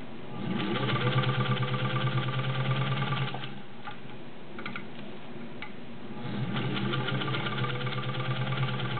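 Singer 201-2 sewing machine, potted motor and gear drive, stitching through six layers of denim in two runs with rapid needle strokes. The machine speeds up about half a second in, runs steadily for about three seconds and stops, then starts again about six seconds in and runs on.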